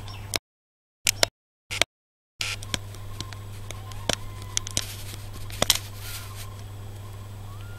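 Soft clicks and crackles of straw bedding as a mother cat and her nursing newborn kittens shift about, over a steady low hum, with a few faint short kitten squeaks. The sound cuts out twice near the start.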